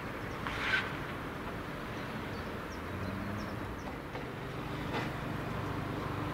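A steady low rumble of distant traffic, with a brief higher-pitched sound under a second in and a few faint bird chirps.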